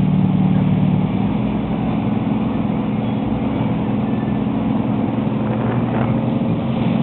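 Motorboat engine running steadily at towing speed, a continuous low hum, with the rush of the wake and wind underneath.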